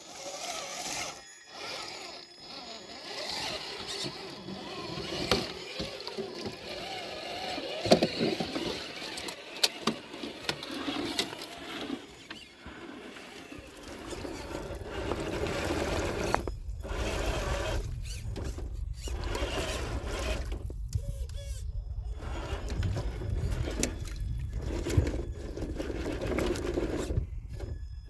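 Creek water trickling over rocks, with small clicks and knocks of hard tyres on stone. About halfway through, a steady low hum and the whirring of a 1/10-scale RC crawler's electric motor and gears take over as the truck works through the creek.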